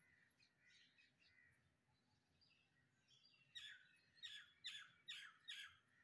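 House sparrows chirping: soft, scattered chirps at first, then a run of five loud chirps about half a second apart in the second half.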